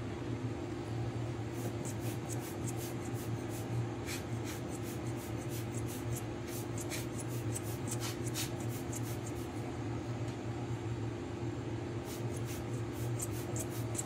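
Rubber air-blower bulb squeezed again and again, giving short, quick puffs of hissing air, with a pause about two-thirds of the way through. A steady low hum from a fan or air conditioner runs underneath.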